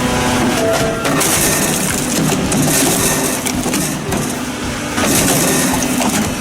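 Wood-processing machine working logs: loud, continuous mechanical crushing and grinding, with repeated bursts of high hiss lasting about a second each.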